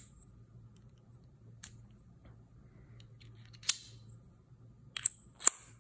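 Sharp metallic clicks from the parts of a small aluminium-alloy screwdriver and its bit holder being handled: five short clicks, the last two loudest and about half a second apart near the end.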